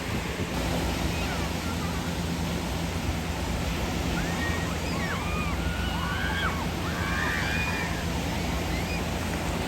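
Steady wash of sea surf and wind, with several short high calls, like distant voices, from about four to eight seconds in.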